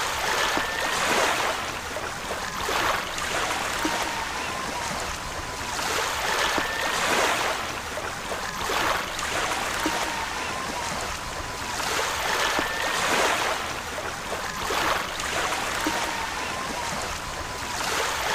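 Heavy rain with sea surf: a steady hiss that swells every two seconds or so as waves break, with a faint high whistle that recurs about every six seconds.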